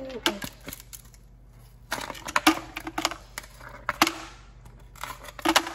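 A plastic ice cube tray is twisted and knocked, and the cubes crack loose and clatter into a bowl. The clicks and cracks come in several bunches: just after the start, two to three seconds in, around four seconds and near the end.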